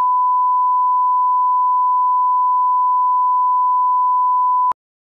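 Broadcast line-up test tone sounding with colour bars: one steady, pure beep at a single pitch that cuts off suddenly near the end.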